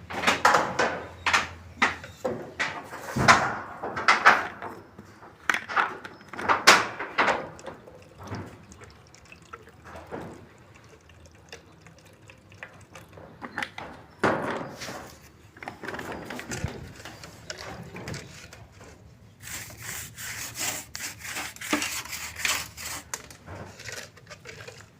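Irregular knocks and clatter of hand work on wood. From about 20 seconds in, continuous scraping and rubbing on a wooden surface.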